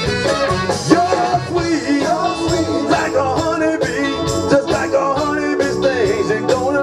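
Live band music with singing: male vocal group over drums, electric guitars and bass, with a steady beat.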